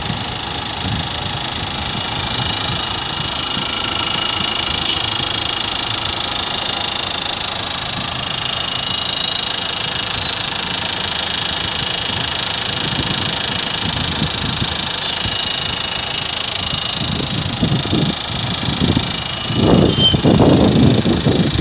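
Four-cylinder diesel engine of a Mahindra Xylo H4 idling steadily, heard with the bonnet open. A few louder low bursts of noise come near the end.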